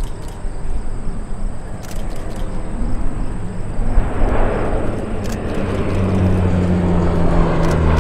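C-130 Hercules' four turboprop engines and propellers growing louder as the aircraft banks in and passes overhead, a rising rush that settles into a steady low propeller drone about six seconds in.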